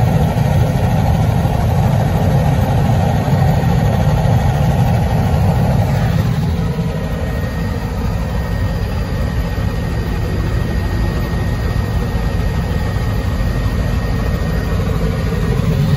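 Helicopter engine and rotor drone heard from inside the cabin, steady throughout. From about six seconds in it becomes a little less bright, and a faint steady high whine appears.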